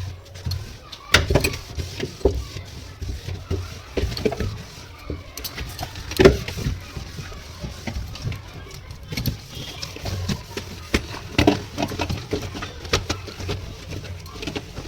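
A wet cloth wiping and rubbing the plastic inside of a refrigerator, with irregular knocks and taps against the fridge walls and parts. The loudest knock is about six seconds in.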